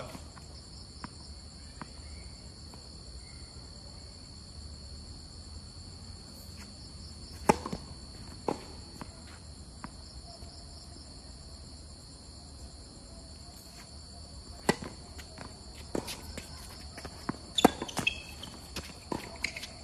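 Tennis ball being hit with rackets and bouncing on a hard court: sharp pops, two about a third of the way in, then a quick run of hits and bounces in the last few seconds as a doubles point is played. Under them runs a steady high-pitched insect chorus.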